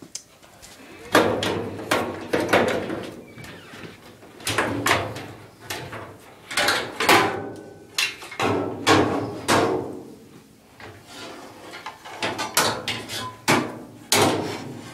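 Sheet-metal parts of an LG clothes dryer knocking, clattering and scraping as the drum is worked loose and pulled out, in an irregular run of knocks with brief ringing.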